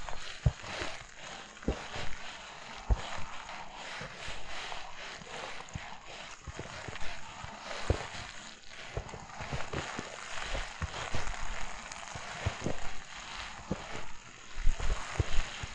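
Footsteps crunching through fresh snow at a steady walking pace, each step a short crunch with a soft low thud.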